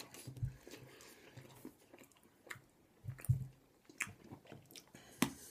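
A person chewing and biting into Cadbury Creme Eggs, with soft wet mouth sounds and a few short sharp clicks.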